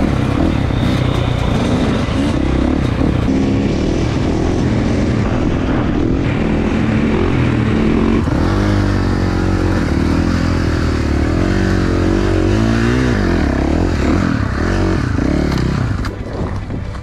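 Two-stroke dirt-bike engines revving hard and easing off again and again, the pitch swinging up and down as the riders wheelie. The revs drop away about a second before the end.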